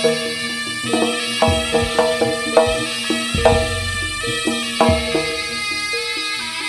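Live jaranan music from a Javanese gamelan-style ensemble: bronze percussion ringing out steady pitched notes over quick hand-drum strokes. Deep drum thuds, falling in pitch, come three times.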